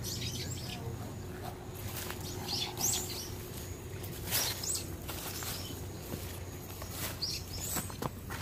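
Birds chirping now and then: several short, high calls, over a low steady background hum.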